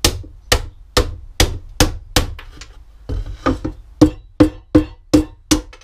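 Hammer striking a wooden board to knock out the thin waste slivers between closely spaced saw kerfs: a run of sharp wooden knocks, about two or three a second, with a short pause around the middle.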